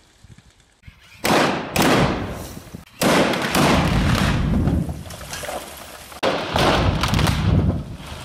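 Rock blasts set off under rubber blast mats with emulsion explosive and non-electric detonators: four sudden bangs, about a second in, shortly after, at three seconds and past six seconds. Each is followed by rumbling and rattling that dies away over a second or two.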